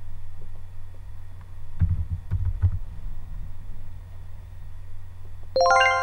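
To-do list web page's add-item sound effect: a bright chime of several ringing tones that start in quick succession near the end and ring on. Before it, a few soft low knocks about two seconds in, over a steady low hum.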